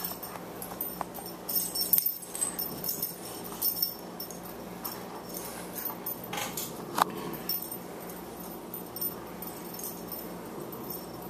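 Boxer puppy and adult boxer play-fighting: scuffling and mouthing sounds with collar tags jingling, and one short sharp high sound about seven seconds in.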